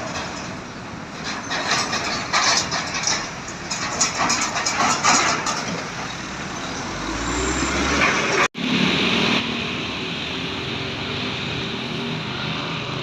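Road traffic with a heavy bus going past: rough, uneven road noise, then a deep low rumble that builds about seven seconds in. A sudden cut follows, then a short burst of hiss and a steady engine running.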